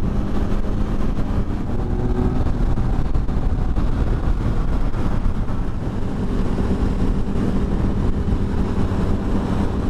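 Motorcycle engine at a steady highway cruise, heard from the rider's seat. A strong low wind rumble sits over it, with the engine pitch holding nearly steady and shifting only slightly.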